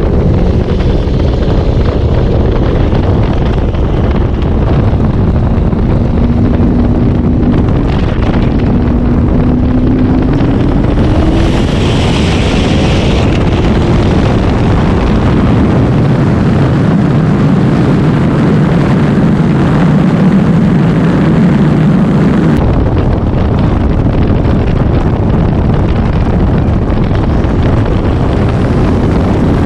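Supercharged Camaro ZL1 1LE and twin-turbocharged 5th-gen Camaro 1LE V8s running flat out in a roll race, with a heavy rush of wind and road noise. The engine note climbs gradually through the pull, then drops off suddenly a little over 22 seconds in as the throttle is lifted.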